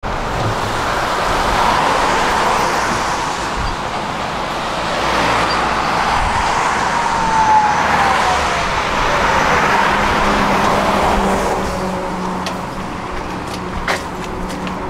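Street traffic: road vehicles passing by one after another, their noise swelling and fading. One passing vehicle gives a falling whine about seven seconds in.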